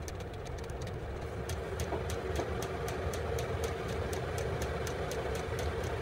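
Vevor 5 kW diesel air heater running through its start-up with the glow plug still heating: a steady hum from the heater with a fast run of faint ticks throughout.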